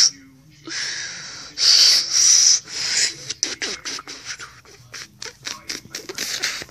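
A person blowing hard through a finger held at the lips, trying for a finger whistle: two long airy hisses, then a quick string of short sharp puffs.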